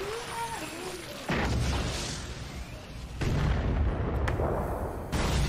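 Action-anime fight sound effects: a series of heavy booming blasts, each with a deep rumble. A fresh blast starts about a second in, another just past three seconds, and one more near the end.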